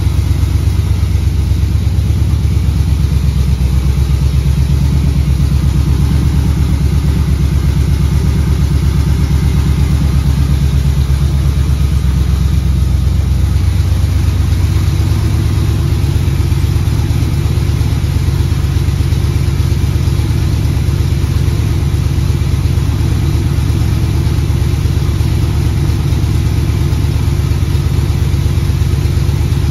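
C3 Corvette's V8 idling steadily through used side pipes with built-in mufflers, really quiet for side pipes; the owner takes them for reverse-flow side-pipe mufflers, the quietest kind.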